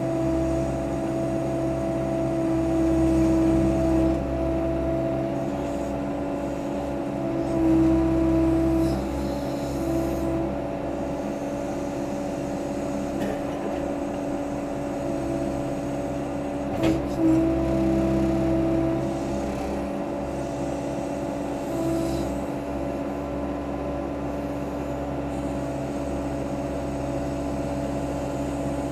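Case 580C backhoe's engine running steadily, rising in loudness several times as the hydraulics work the boom while digging. There is one sharp knock about halfway through.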